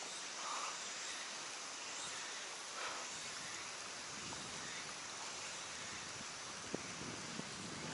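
Steady outdoor background hiss beside a creek, with soft rustling from about halfway in and one sharp click near the end.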